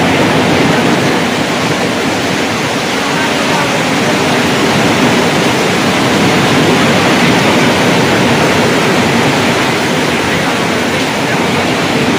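Torrential rain and hail pelting the pavement and buildings in a severe thunderstorm, a loud, dense, steady rush of noise.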